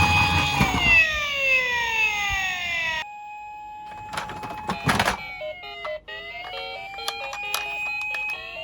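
Electronic police siren sounds from toy police cars. A siren tone falls in pitch and cuts off suddenly about three seconds in. Another siren tone follows, with a short clatter around five seconds in, then dips in pitch and rises again over pulsing electronic beeps.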